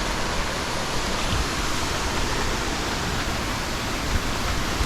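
Waterfall rushing steadily, with no breaks or distinct splashes.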